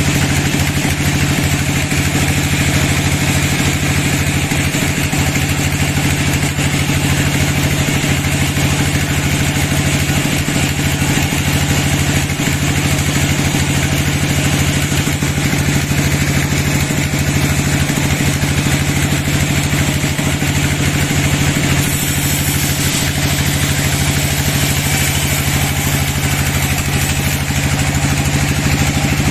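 Sawmill bandsaw machine running steadily, a constant engine-like hum that does not change in level.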